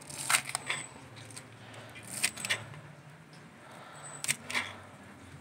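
Kitchen knife slicing through leek stalks onto a cutting board: sharp taps of the blade on the board, in three quick pairs about two seconds apart.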